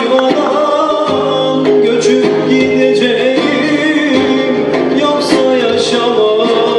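Male vocalist singing live with a small ensemble of oud, other plucked strings and drums, long held notes that bend in pitch over the accompaniment.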